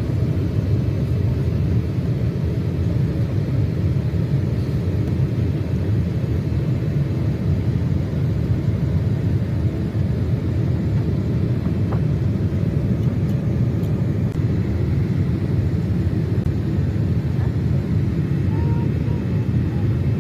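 Steady low rumble of cabin noise inside a Boeing 787 airliner, engine and airflow noise running evenly.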